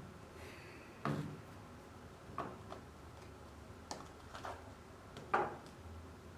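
A few separate light knocks and clicks, about six spread irregularly, the sharpest a second in and near the end.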